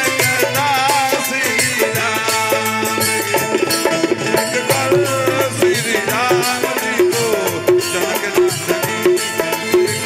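Live band playing an instrumental interlude of a Bhojpuri devotional song: a wavering melody over dense percussion, with a short note repeating at a steady pace in the second half.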